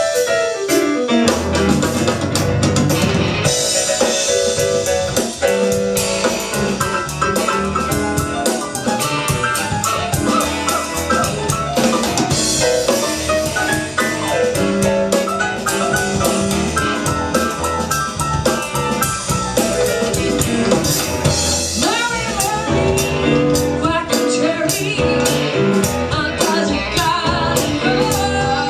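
Live band playing an R&B song with a steady drum-kit beat.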